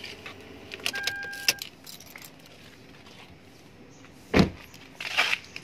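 Keys jangling at the ignition of a Daihatsu Terios, with a short steady beep about a second in. A little past four seconds in a car door shuts with a heavy thud, the loudest sound, followed by a brief scuffing noise near the end.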